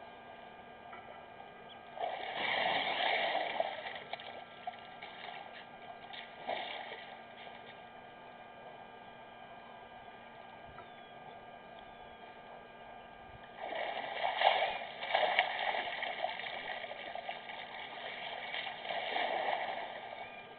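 Elephant bull drinking: water splashing and gushing in three bursts, about two seconds in, then longer ones about two-thirds of the way through and near the end, over a faint steady electrical hum.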